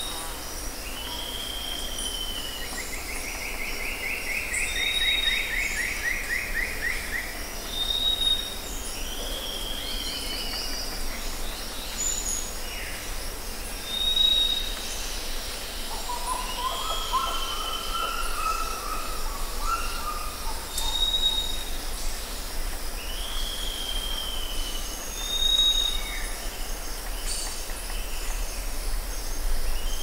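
Rainforest ambience of birds and insects. A short high whistle, each followed by a down-slurred note, repeats every four to five seconds. A buzzy trill comes in the first few seconds and a lower warbled call midway, over a steady high insect drone and a low rumble.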